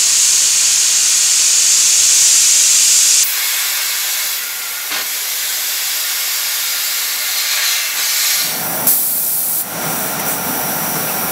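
Oxy-fuel cutting torches on an ESAB Suprarex HDX CNC cutting machine hissing steadily as they cut steel. The hiss changes abruptly about three seconds in and again about eight seconds in, when a lower rumble joins it.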